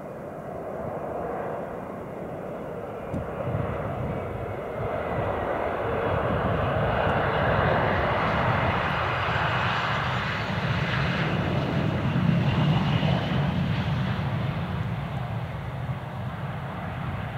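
Bombardier CRJ regional jet's rear-mounted turbofans on landing: a steady jet roar with a high whistling whine. It swells as the jet passes close at touchdown, is loudest a few seconds later during the rollout, then eases off.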